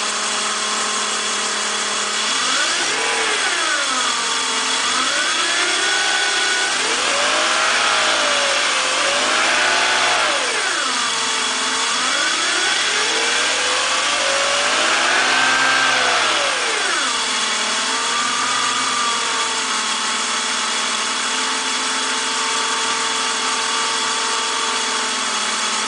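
BMW M54 straight-six engine idling, revved up and down several times in smooth swells, then settling back to a steady idle for the last several seconds. The owner finds its purring noise odd.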